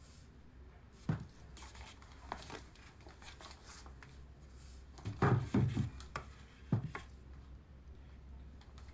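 Stretched canvases on wooden frames being handled and flipped through: a series of wooden knocks and scrapes, loudest in a cluster of knocks about five seconds in.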